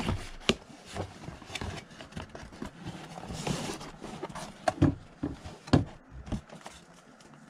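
Cardboard shipping box being opened and handled by hand: scattered taps and knocks of cardboard against the table, with a longer rustling scrape of cardboard about three and a half seconds in.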